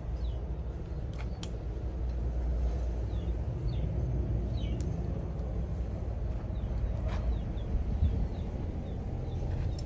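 Outdoor ambience: a steady low rumble, with faint short falling chirps scattered throughout and a few sharp clicks.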